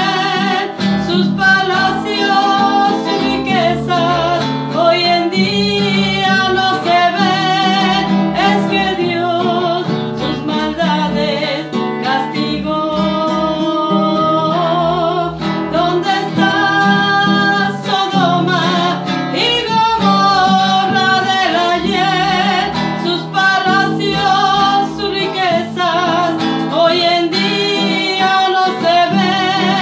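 A woman singing with vibrato over strummed acoustic guitar.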